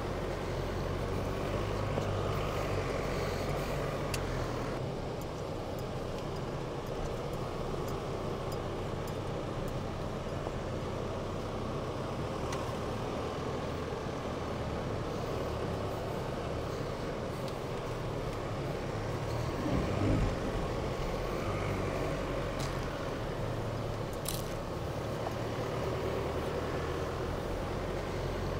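Chevrolet Colorado ZR2 Bison pickup's engine running steadily, with a brief low thump about twenty seconds in.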